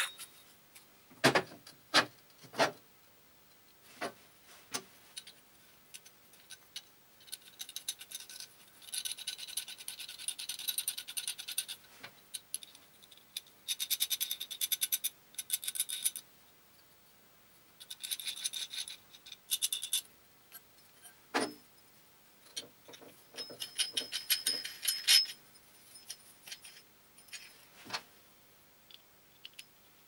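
Steel pipe fittings and hardware handled on a metal workbench: a few sharp clinks and knocks as parts are set down, and several stretches of rapid fine metallic clicking and grating as threaded parts are turned and screwed together by hand.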